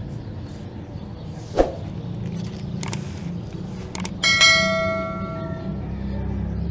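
Subscribe-button animation sound effect: two sharp mouse clicks, then a bright notification bell chime that rings and fades over about a second and a half. A soft knock comes before them, over a steady low hum.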